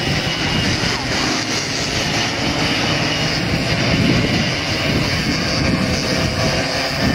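A pack of racing karts' high-revving two-stroke engines running together, several engine notes overlapping and rising and falling as the karts accelerate and brake through the corners.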